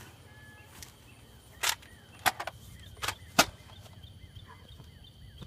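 Airsoft guns firing: about six sharp snaps over the first three and a half seconds, a quick pair of them about two seconds in. Faint chirping runs underneath.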